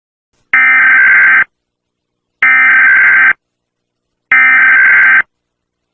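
Emergency Alert System SAME header: three bursts of digital data tones, each about a second long, about a second apart. This is the coded header that opens an emergency alert broadcast.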